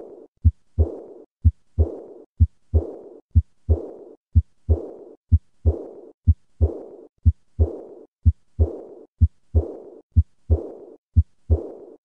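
Heart sounds of aortic regurgitation beating regularly about once a second. Each beat has a first and second heart sound, and the second is followed at once by a high-pitched, decrescendo diastolic murmur that fades away before the next beat.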